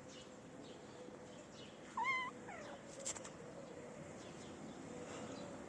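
A cat meows once about two seconds in: a short, wavering cry that slides down in pitch at the end.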